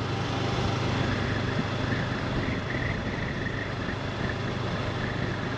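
Honda CB500X parallel-twin motorcycle riding at a steady speed: a low engine hum under steady wind and road noise.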